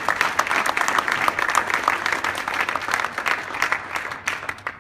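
Audience applauding with many hands clapping, thinning out and dying away near the end.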